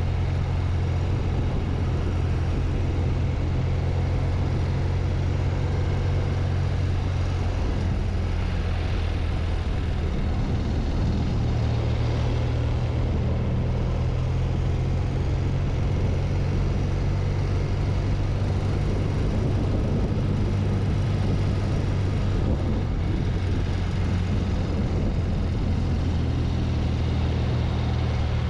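BMW R100 CS air-cooled flat-twin engine running steadily at road speed, with wind and road noise over it. The engine note shifts about eight seconds in and again about twelve seconds in.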